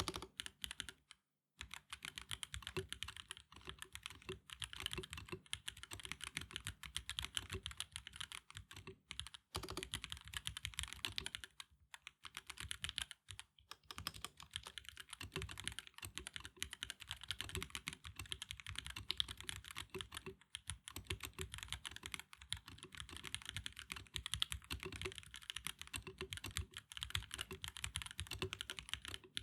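Typing on an Epomaker EK68 mechanical keyboard: a rapid, continuous run of key strokes, broken by a few brief pauses about a second in and again around nine, twelve and fourteen seconds in.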